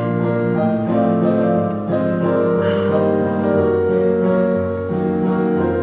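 Piano accompaniment playing slow, sustained chords over a steady low bass note.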